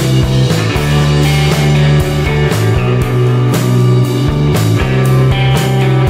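Background rock music with guitar and a steady drum beat.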